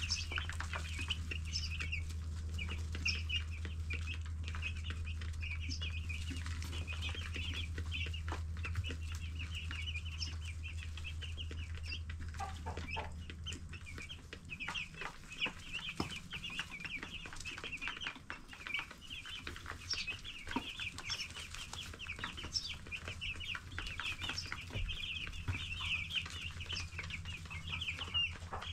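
A flock of 10-day-old broiler chicks peeping continuously, many short high chirps overlapping. A low steady hum runs underneath and stops about halfway through.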